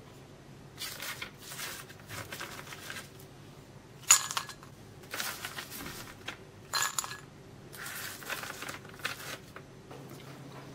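Crisp sugar-toasted bread cubes being picked off parchment paper and dropped into a ceramic bowl: a run of short rustling scrapes and light clinks, the loudest click about four seconds in.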